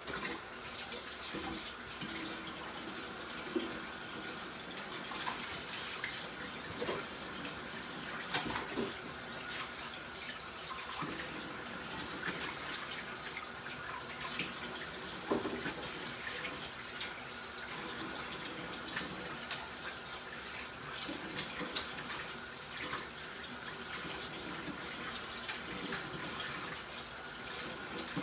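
Kitchen tap running steadily into a sink. It comes on abruptly, with scattered light knocks and clicks over the flow.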